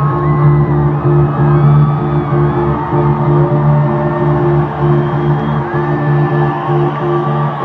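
Loud electronic dance music with a steady, pulsing bass line, with whoops and shouts from a crowd over it.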